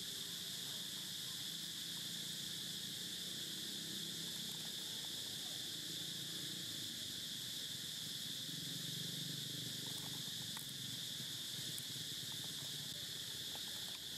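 Steady, high-pitched buzzing of an insect chorus, unbroken throughout, over a faint low hum.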